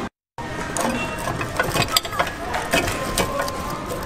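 Candy vending machine's lollipop mechanism working, with irregular ratchet-like clicks and plastic knocks as a lollipop is delivered into the out chute. There is a brief dead gap just at the start.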